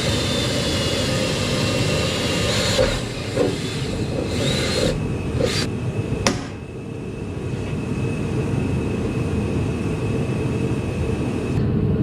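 A steady low drone from a running machine, with a few sharp clicks and knocks of small metal parts being handled. The sharpest knock comes about six seconds in.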